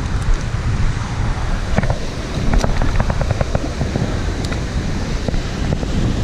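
Wind buffeting the microphone over small waves washing onto a shingle beach, a steady low rumble. A couple of seconds in comes a run of small sharp clicks and crunches, footsteps on the gravel.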